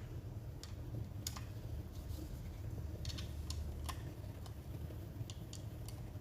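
Irregular small clicks and taps, about a dozen, from hands and tools handling the parts of an opened laptop, over a low steady hum.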